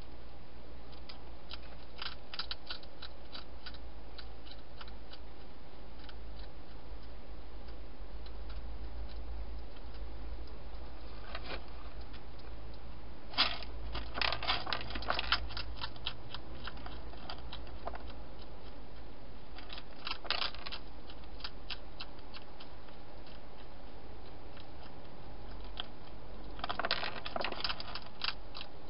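A wild hedgehog crunching dry food inside a plastic feeding box: scattered bouts of sharp clicks and crunches, the busiest about halfway through and near the end, over a steady low hum.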